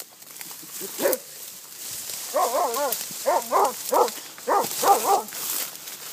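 Small white hunting dog giving voice on a scent track: one short yelp, then a rapid run of about ten high, rising-and-falling yelps over a few seconds.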